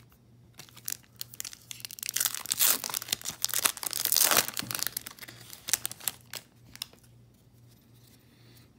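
Plastic-foil wrapper of a baseball card pack being torn open and crinkled, loudest two to four seconds in and dying down for the last couple of seconds.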